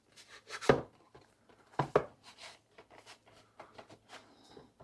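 Cardboard knife box being worked open by hand: short scrapes and knocks of the packaging, two louder ones a little under a second in and about two seconds in.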